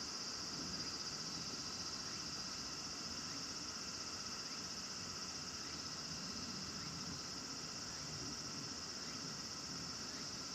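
Steady high-pitched insect chorus, an even drone that holds unbroken throughout, over faint low background noise.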